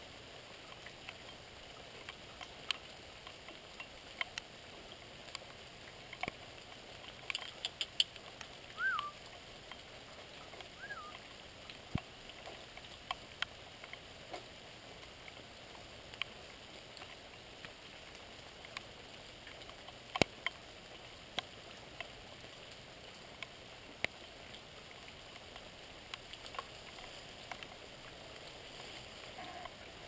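Steady hiss of light rain with irregular sharp ticks of raindrops dripping and tapping close by, and two short whistled chirps about nine and eleven seconds in.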